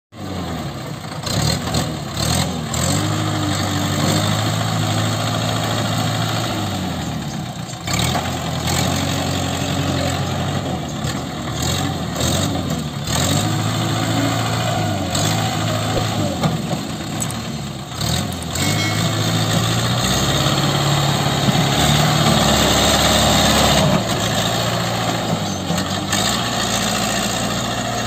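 Diesel engine of a JCB backhoe loader running under load as the machine drives, its speed rising and falling every few seconds.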